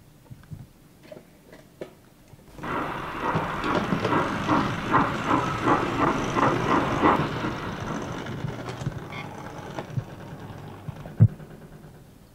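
O gauge model crane tank locomotive running off along the track: its running gear sets up a regular beat of about three to four pulses a second, starting suddenly about two and a half seconds in and fading away towards the end. A few light clicks come before it, and one sharp click comes near the end.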